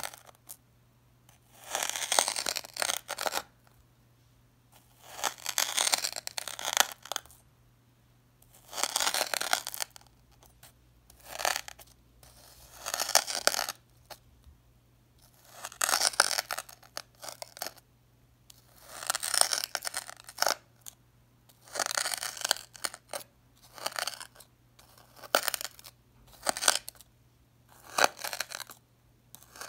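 Knife blade pressed down through a slab of packed, dyed crunchy sand, a crisp crunch with each cut. There are about a dozen cuts, one every couple of seconds, with quiet between.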